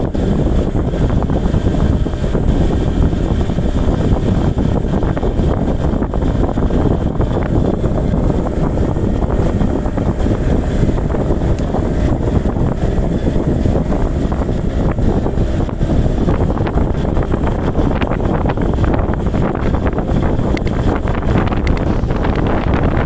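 Wind buffeting the microphone in an open boat: a loud, steady low rumble with no break.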